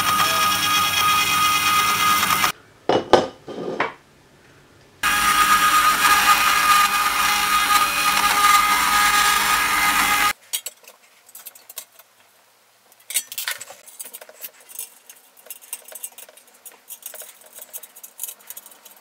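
Metal-cutting saw cutting aluminium extrusion: a loud, steady cutting noise with a high ring in it that stops about two and a half seconds in. After a few short clatters and a pause, the saw cuts again for about five seconds. Then light metallic clicks and taps as aluminium extrusions and corner brackets are fitted together.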